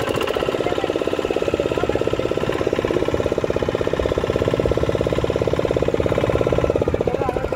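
Motorboat engine running steadily with a rapid, even pulse.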